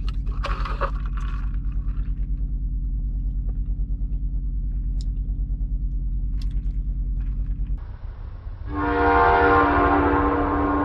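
Diesel engine of a Volvo VNL 860 semi truck idling with a steady low pulse, heard inside the sleeper cab, with a few light clicks from a straw going into a cup lid. The idle cuts off about eight seconds in, and about a second later a loud horn blast of several tones sounding together begins.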